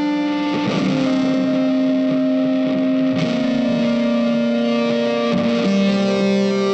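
Background music of long, held electric guitar notes with distortion and effects, the notes changing every two to three seconds.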